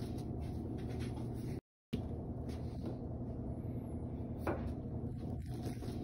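Steady low hum of kitchen room noise with a few faint light knocks, broken by a short moment of silence about a second and a half in.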